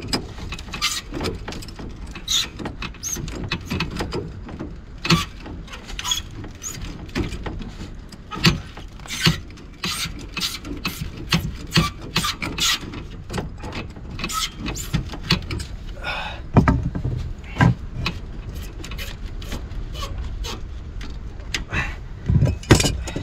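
Pliers working at a brass fitting on copper pipework: an irregular run of small metallic clicks, scrapes and knocks, with a few louder knocks in the second half.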